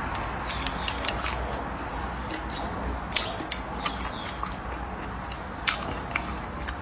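Close-miked eating: a person chewing a mouthful of rice and stir-fried green peppers, with wet mouth smacks and sharp clicks now and then.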